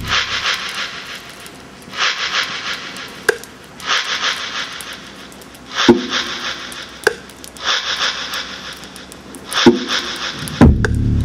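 Rhythmic hand percussion: a shaken rattle-like swish about every two seconds, with a few sharp deep drum thumps between.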